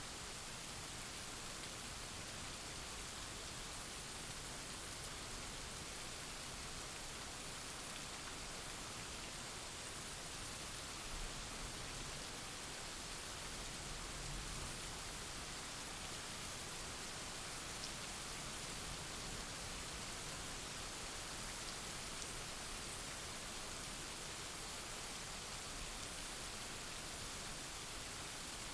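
Steady rain falling, an even hiss of many drops. A faint low rumble swells briefly about halfway through.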